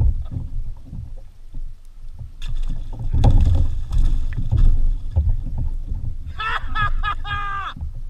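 A hooked fish thrashing and splashing at the side of a kayak as it is gaffed, over a steady rumble of wind on the microphone. A few short high cries come near the end.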